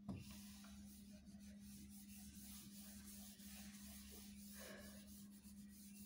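Faint rubbing and swishing of a duster wiping a whiteboard clean, over a steady low hum.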